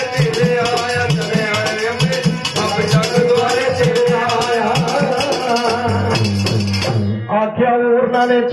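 Instrumental interlude of a Punjabi devotional song to Mata: a steady rattling percussion beat over melody and bass. About seven seconds in, the high sizzle drops out and the music sounds duller.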